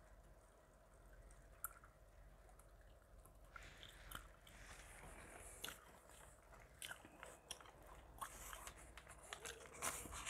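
Chewing gum close to the microphone: soft wet smacks and clicks that start a few seconds in and come often after that.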